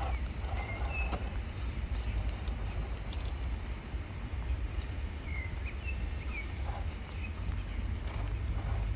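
Low, gusty rumble of wind on the microphone, with a few short high bird chirps about a second in and again around five to six seconds in.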